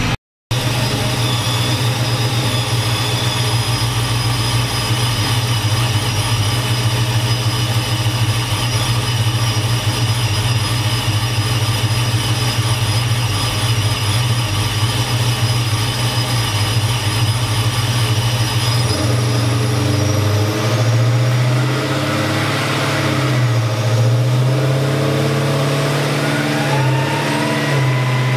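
Boosted Dodge Charger SRT8 V8 running on a chassis dyno: a steady idle, turning less even about two-thirds of the way through. Near the end a whine begins to climb in pitch as the engine starts to speed up, the start of a dyno pull.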